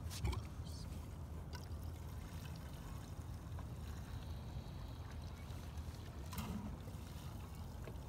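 Gasoline trickling from a plastic gas can's flexible spout into a small engine's fuel tank, over a steady low rumble, with a short knock about a quarter second in.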